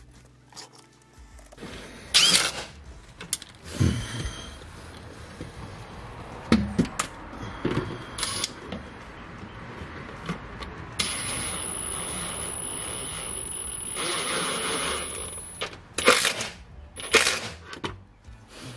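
Hand tools working the fasteners of an aluminium underbody bash plate: scattered metallic knocks and clicks, then a steady mechanical run with a thin high whine for about five seconds, from around eleven seconds in, followed by more knocks.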